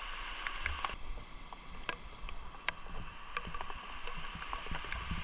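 Water splashing and sloshing, with a few scattered light knocks and clicks.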